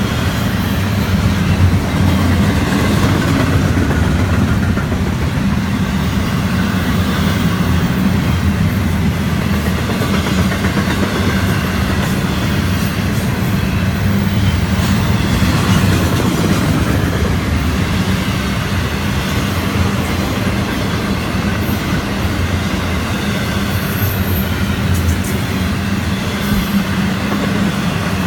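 Florida East Coast Railway freight train's cars rolling past: a loud, steady rumble of steel wheels on rail with some clatter over rail joints.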